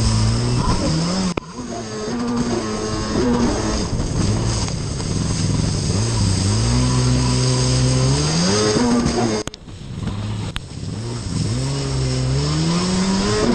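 Stand-up race jet ski's two-stroke engine at racing throttle, with water spray hissing off the hull. The revs drop away sharply about a second in and again just past the middle, then climb back up in long rising sweeps.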